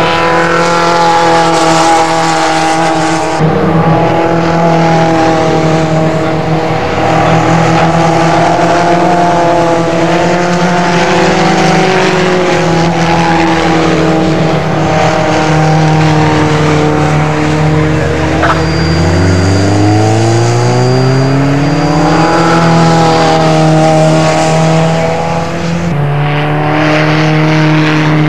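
Racing car engines running hard as several open-cockpit sports racers lap the circuit. About two-thirds of the way through, one engine climbs steadily in pitch as it accelerates.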